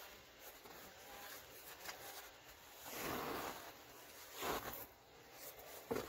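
Soft puffs and rustles of loose white powder being crumbled and dropped by hand into a plastic tub, in three short swells about three, four and a half, and six seconds in.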